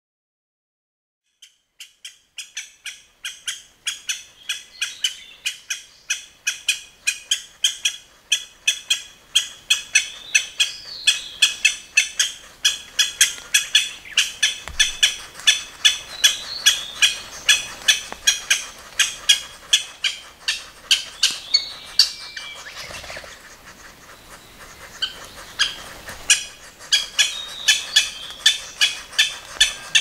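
Japanese green woodpecker nestlings begging in the nest hole while an adult feeds them. It is a rapid, even series of short high chirps, about three a second, beginning a second and a half in. The chirps thin out briefly about three-quarters of the way through, then pick up again.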